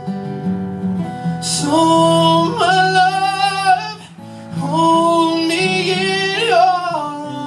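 A man sings two long phrases over a strummed acoustic guitar, played live through a microphone. His voice wavers with vibrato near the end of each phrase, and the guitar keeps strumming through the short pause between them.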